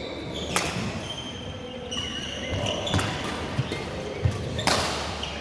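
Badminton rally on a wooden hall floor: sharp racket strikes on the shuttlecock, the loudest about half a second in and near the end, with softer hits and thuds of footwork between, and short high squeaks of shoes on the floor.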